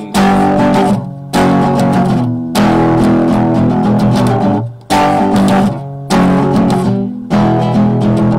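Guitar strummed in chords, a chord struck about every second and left to ring out before the next.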